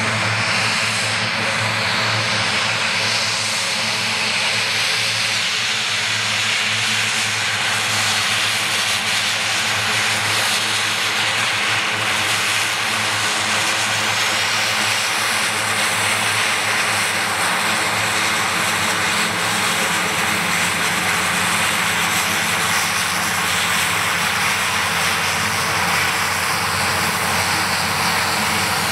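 Short SC-7 Skyvan's twin Garrett TPE331 turboprop engines running at taxi power as the aircraft taxis on the ground: a steady propeller drone, with a thin high turbine whine that comes in about halfway through as it turns side-on.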